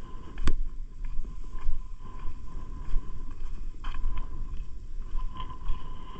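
Wind buffeting the microphone, with a few sharp clicks of footsteps on rock, the loudest about half a second in.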